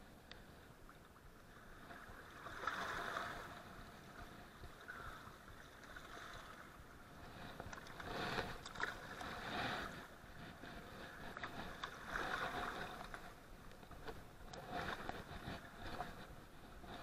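Small waves washing and sloshing against rock riprap at the water's edge, surging in every few seconds.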